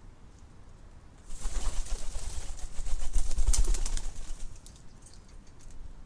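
Wood pigeon pecking seed from a feeder tray: a dense run of quick clicks and knocks starts about a second in and lasts some three seconds, with low thuds against the tray.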